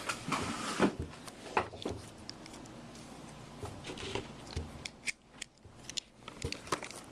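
Sealed trading-card box being cut and opened: scratchy cutting and rustling of the shrink wrap and cardboard, broken by sharp clicks and taps.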